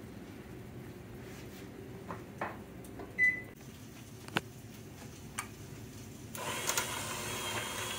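A single short electronic beep about three seconds in. Then, about six seconds in, a KitchenAid electric hand mixer starts and runs steadily, its beaters mashing boiled potatoes in a stainless saucepan.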